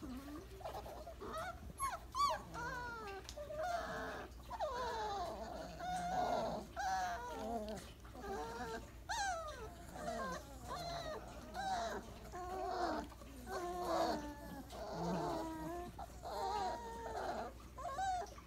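Four-week-old Weimaraner puppies whimpering and squeaking: many short, high, wavering calls that overlap one another, as several pups fuss while settling in a pile.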